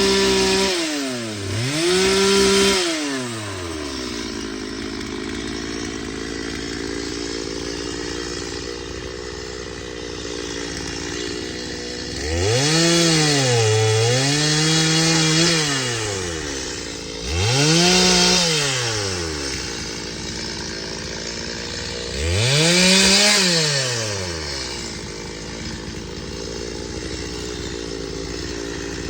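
Two-stroke chainsaw idling and being revved to high speed several times, each rev lasting a second to a few seconds before the engine drops back to idle; the first of the long revs sags briefly in the middle.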